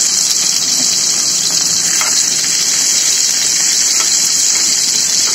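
Sliced onions frying in hot oil with whole cumin and garlic cloves in a frying pan, sizzling steadily for a baghar (tempering), with a light scrape or two of a wooden spatula.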